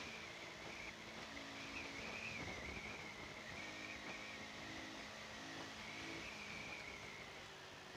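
Motorcycle riding along a road, heard from on the bike: steady rush of wind and road noise with a low engine hum, and a high, wavering whine over it.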